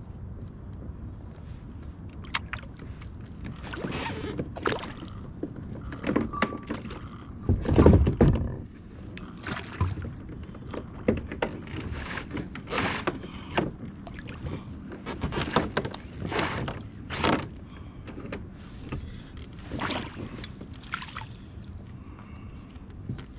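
Irregular knocks, taps and clatters of a landed bass and fishing gear being handled in a plastic kayak, with one louder thump about eight seconds in.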